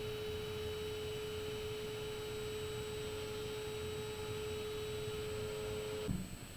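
A single steady tone from a permanent magnet driven back and forth several hundred times a second by an oscillator-fed electromagnet, its vibration sounding from the magnet housing. The tone cuts off suddenly with a small click about six seconds in.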